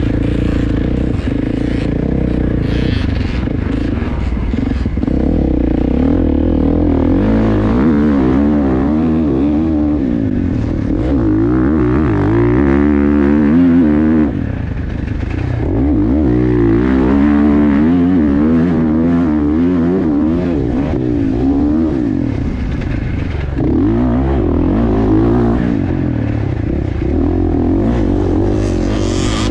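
Dirt bike engine heard from the rider's helmet camera, revving up and falling back again and again as the bike accelerates and rolls off along a sandy track.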